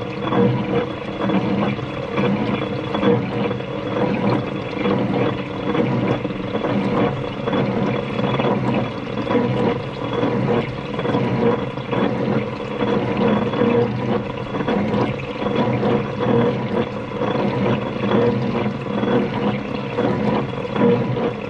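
D18 American pumping-unit gearbox running open-topped, its helical gears turning through the oil bath with a steady gear noise and oil splashing. The gear noise comes from a new gear that has not yet worn in to mate with the high-speed gear.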